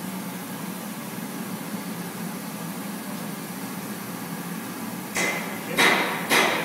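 CNC machining centre running steadily with its spindle turning a four-flute end mill and flood coolant pouring, a hum under a wash of noise. About five seconds in, three sharp loud knocks about half a second apart begin.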